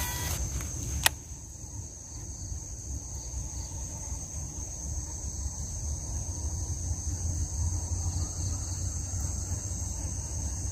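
Steady high-pitched chirring of insects, with a low rumble of wind on the microphone. One sharp click about a second in.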